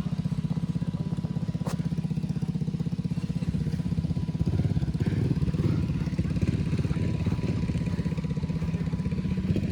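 Small off-road vehicle engine idling with a rapid, even pulse, getting a little louder and rougher about halfway through. A single sharp click comes just under two seconds in.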